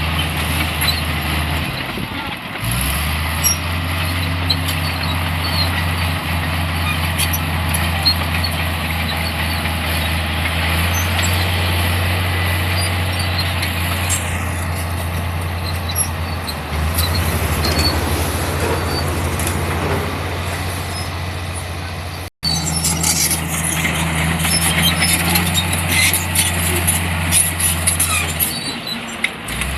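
Diesel engine of a heavy earthmoving machine running steadily, with small shifts in pitch and scattered faint clicks. The sound drops out for an instant about two-thirds of the way through.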